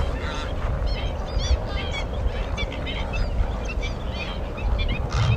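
A flock of waterbirds calling: many short, overlapping honking calls, over a steady low rumble.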